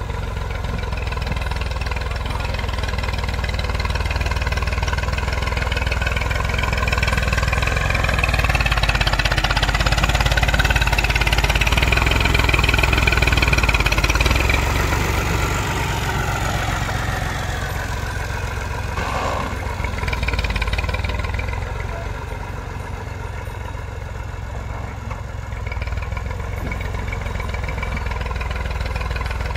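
Massey Ferguson 240 tractor's three-cylinder diesel engine running under load as it pushes soil with a front blade. The revs climb through the first half and drop back about halfway through.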